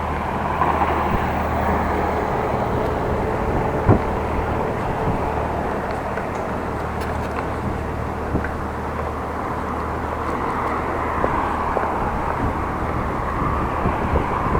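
Steady road and traffic noise heard from a moving bicycle, with one sharp knock about four seconds in.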